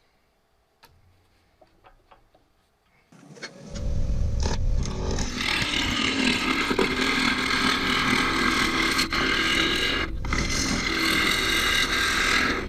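Quiet tool handling, then about three seconds in a loud, steady cutting sound starts: a bowl gouge cutting into a walnut wedge spinning on a wood lathe. It has a deep rumble and a rough scraping hiss, with two short breaks near the end.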